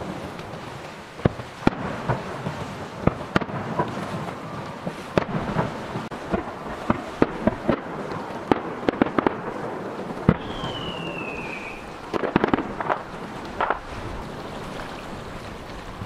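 Aerial firework shells bursting: a run of sharp bangs at irregular spacing, sometimes several close together, over a low rumble. About two-thirds of the way through, a falling whistle lasts over a second.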